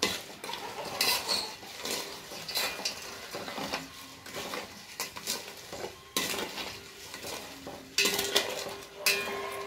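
A spoon stirring jaggery into water in a pot, scraping and clinking against the vessel in irregular strokes, as the jaggery dissolves for the syrup of a herbal lehyam.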